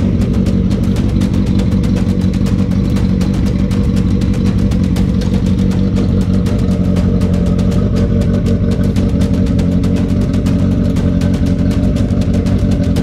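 1980 Kawasaki KZ750 LTD motorcycle engine idling steadily at a fast, even beat.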